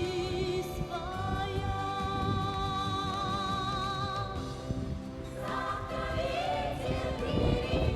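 Music: a wordless choir holding long notes with vibrato over a slow song's accompaniment, moving to new notes about a second in and again around five seconds in.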